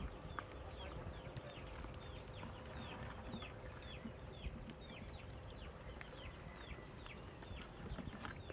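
Faint, steady run of high-pitched peeping calls from a small animal, each call falling in pitch, two or three a second.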